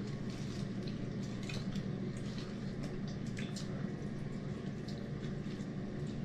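People eating with their hands: many small wet clicks of chewing and lip-smacking, with fingers picking at fried chicken and rice. A steady low hum runs underneath.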